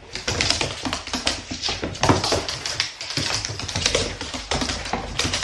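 Small dog playing tug with a rubber toy, its claws clicking and scrabbling on a laminate floor in rapid, irregular taps.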